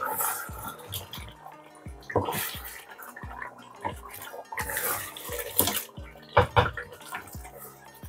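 Wooden spatula stirring mutton chops through a thick yogurt gravy in a large pot: irregular wet squelching and slopping strokes, several in quick succession a little past the middle.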